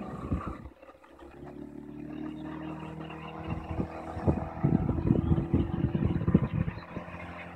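Johnson 8 hp outboard motor running at a steady pitch, pushing a small boat. It comes in about a second in, with irregular low buffeting over it from about halfway.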